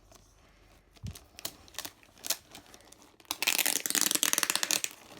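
A taped plastic mailer package being opened with scissors: scattered clicks and a soft thump of handling, then about a second and a half of dense crinkling and rasping as the packaging is cut or torn.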